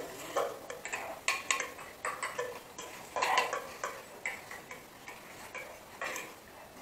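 Fork and chopsticks clicking and scraping against disposable bowls as noodles are eaten, in irregular small ticks with a few louder bursts.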